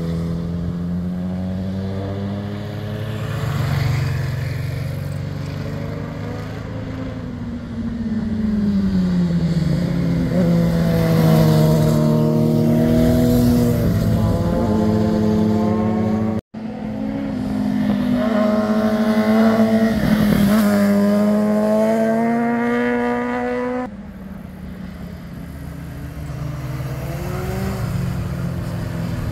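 Motorcycle engines passing through a hairpin bend one after another, their pitch falling as they slow into the turn and then rising as they accelerate out. The sound breaks off abruptly for a moment about halfway through, and changes suddenly near the end.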